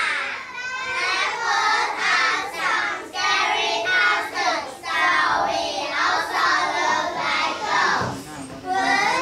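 A group of young children singing together in unison, phrase after phrase, with a brief pause near the end.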